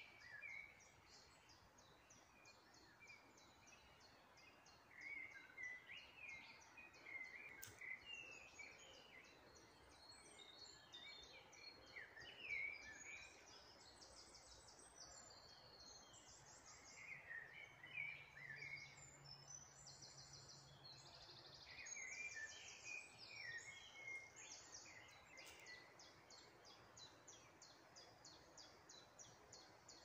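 Faint woodland birdsong: several birds chirping and calling, with a high, rapidly repeated note running through much of it.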